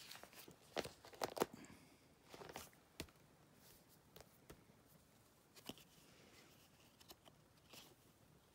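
Faint rustling and a few light clicks of baseball cards being handled and slid into plastic binder pages.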